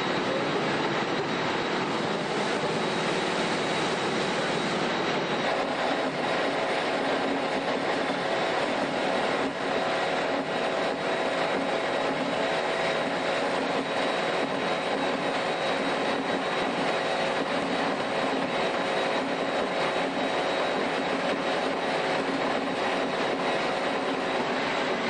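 HEMSAW DC8080 industrial bandsaw cutting through a pickup truck's cab, its blade working through the sheet-metal pillar and window frame. A steady metal-cutting screech with a high ringing tone over a dense grinding noise, even in level throughout.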